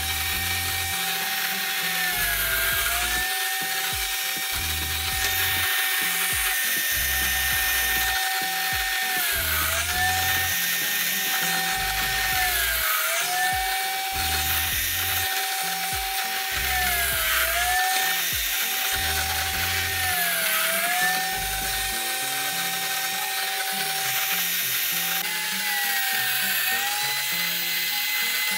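Endico SLOK30 5-inch circular saw, mounted upside down as a table saw, running continuously with a steady high whine. Every few seconds the pitch sags for about a second and then comes back up, as the blade bogs under load cutting a groove through the wood.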